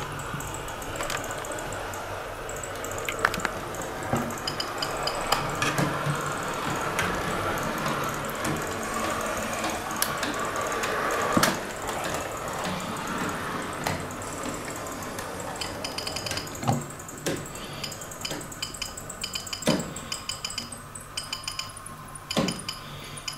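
Model train running on metal track: a steady running hum with frequent light metallic clicks and rattles from the wheels on the rails, the clicks becoming more spaced out toward the end.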